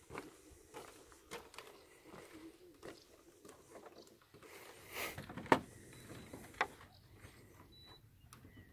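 Footsteps and knocks on the wooden planks of a floating dock: scattered light steps, with the loudest knock about five and a half seconds in and another about a second later.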